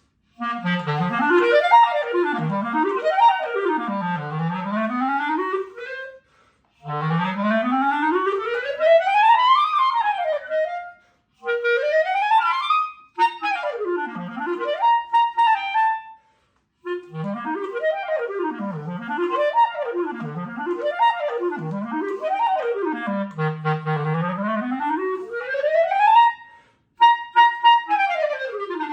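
Solo clarinet playing fast scale and arpeggio runs that sweep up from the bottom of its range and back down, in several phrases broken by short breaths.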